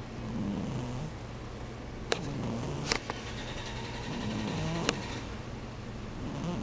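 Domestic cat snoring in her sleep: a low snore with each breath, about every two seconds. A few sharp clicks about two, three and five seconds in.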